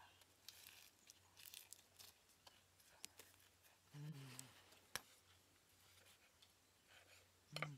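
Faint mouth sounds of a man eating: crunchy chewing on a lettuce leaf. A short hummed "mm" comes about four seconds in and again near the end, with a sharp click about five seconds in.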